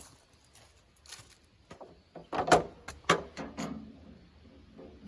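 A few sharp knocks and clicks of hard objects being handled, the loudest two close together about two and a half and three seconds in.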